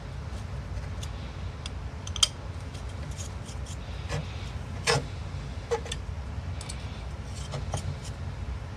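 Scattered small clicks and ticks of a 2.5 mm hex driver working in cap head screws as they are tightened into a carbon fibre motor mount, the sharpest about two seconds in, over a steady low hum.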